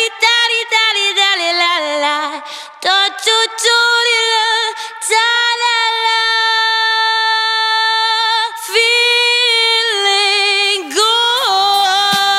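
Soundtrack music: a female voice singing long held notes with vibrato and sliding pitch, unaccompanied.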